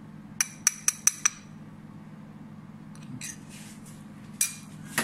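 Five quick, ringing clinks of hard kitchenware knocked together, all within about a second, followed by a few softer scrapes and a knock near the end.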